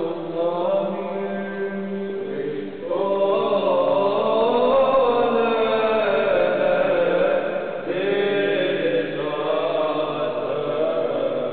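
Several voices chanting together in slow, sustained lines, in the manner of liturgical church chant. New phrases begin about three seconds and about eight seconds in, louder from the first of these.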